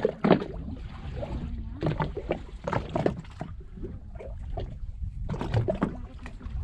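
Small waves lapping and slapping irregularly against a small boat's hull, over a steady low rumble.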